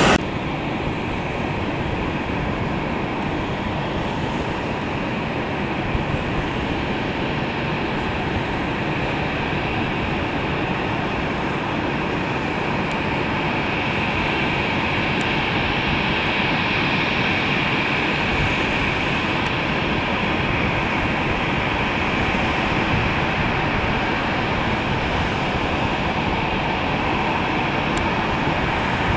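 Airbus A330-243F freighter's Rolls-Royce Trent 700 jet engines at taxi power: a steady rushing hum with a high whine that grows a little stronger past the middle and slowly gets louder.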